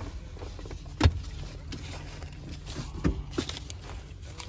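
Steady low rumble of a moving Toyota taxi heard from inside the cabin, with two sharp knocks, about a second in and about three seconds in, and short rustling as a wallet is handled near the microphone.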